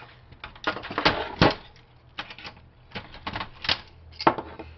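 Hard plastic printer parts clicking and knocking as the printer is taken apart by hand, an uneven run of clatter with the loudest knocks about a second and a half in and again near the end.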